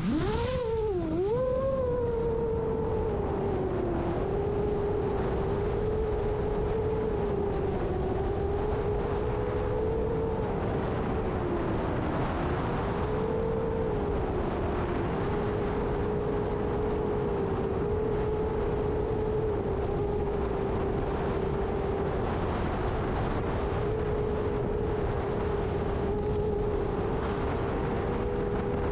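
Motors and propellers of a 7-inch long-range FPV quadcopter in flight, a steady whine that dips sharply in pitch about a second in and then wavers up and down as the throttle works against the gusts. A low rumble of wind runs under it.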